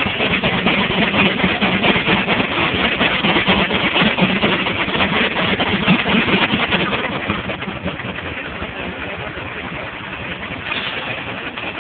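A large sawmill powered by a Case steam traction engine running: a dense mechanical racket, louder for about the first seven seconds, then easing off a little.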